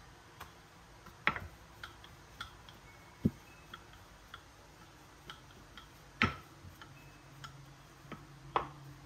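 Scattered light knocks and clicks from rolling out rounds of bread dough by hand, about a dozen at irregular intervals with a few louder knocks.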